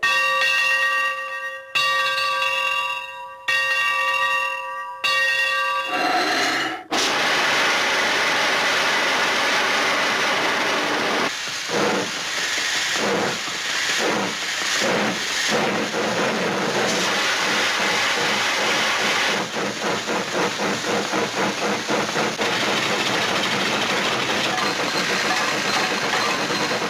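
Steam locomotive whistle sounding four blasts, then a loud hiss of steam and the engine chuffing, the chuffs coming faster near the end as the train gets under way.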